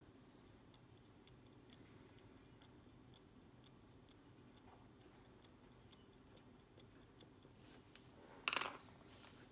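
Faint clicks, about two a second, as a corrector stylus repeatedly presses the moon-phase corrector pusher of a Konstantin Chaykin Joker watch, stepping the moon-phase disc forward. A brief, louder scuffing sound comes near the end.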